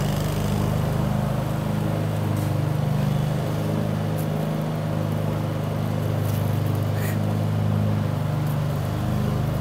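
An engine running steadily at idle, a low even hum, with a few faint clicks over it.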